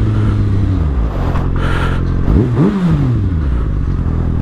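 2020 Kawasaki Ninja ZX-6R 636's inline-four engine through a Yoshimura Alpha T 3/4 exhaust, heard while riding. The revs fall over the first second, rise and drop quickly about halfway, then hold a steady lower note.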